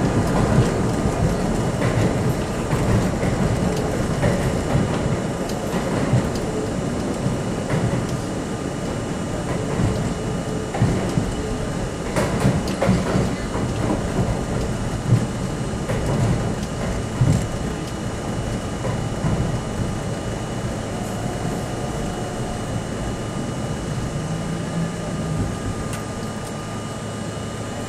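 New York City subway C train running through the tunnel: a steady rumble of wheels on rail with scattered clicks and knocks.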